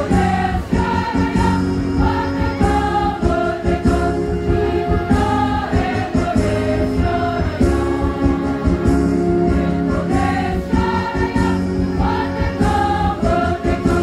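Women's choir singing a song together over an instrumental backing with low notes and a steady beat.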